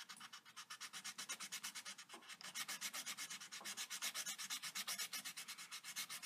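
Green coloured pencil scratching back and forth on paper in quick, even strokes, about eight a second, shading in an area.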